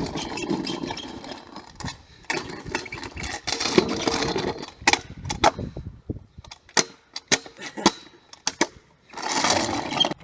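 Kick scooter with cast-aluminium wheels rolling over hard ground with a rough grinding noise, then a run of sharp clacks and knocks, then rolling again near the end.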